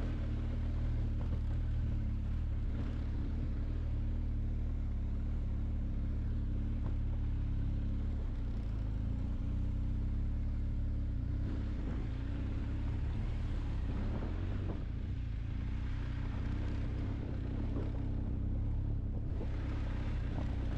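KTM Duke 390's single-cylinder engine running steadily while the bike is ridden, with a continuous rush of road and wind noise over it.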